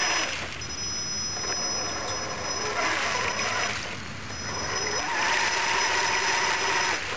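Electric 1/6-scale RC monster truck driving afloat through pond water: a high motor whine with its tyres churning and splashing the water, coming in surges as the throttle is applied. The longest surge starts about five seconds in and stops near the end.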